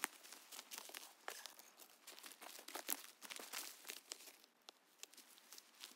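Footsteps through dry leaf litter and twigs: faint, irregular crackling and snapping.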